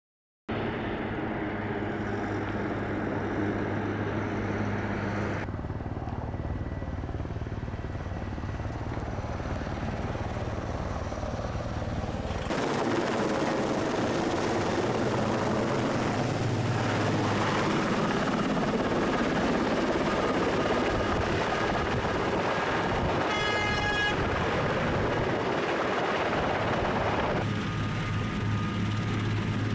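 Large twin-engine military transport helicopter running, its rotor and turbine noise continuous, with abrupt shifts in the sound a few times where shots change. A brief high-pitched whine sounds about three-quarters of the way through.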